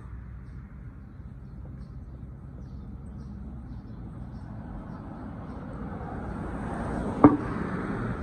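A motor vehicle going by: steady low running noise that swells over the second half and eases off again, with one sharp knock near the end that is the loudest moment.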